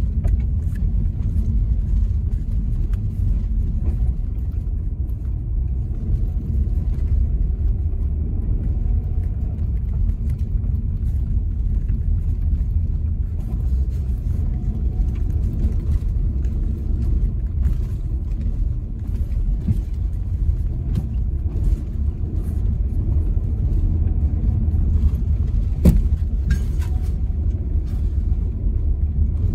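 Car driving slowly on a rough, partly snow-covered dirt road, heard from inside the cabin: a steady low rumble of engine and tyre noise, with scattered light clicks and knocks and one sharper knock near the end.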